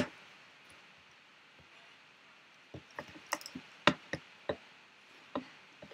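Plastic segments of a Rubik's Snake puzzle clicking as they are twisted. One sharp click comes at the start, then after a pause a run of about a dozen irregular clicks and ticks.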